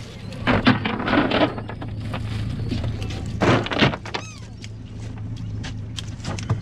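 Cast net with its lead line being dumped onto a boat's deck: two bouts of thuds and clatter, about half a second in and again around three and a half seconds. Under them runs the steady low hum of the idling boat motor.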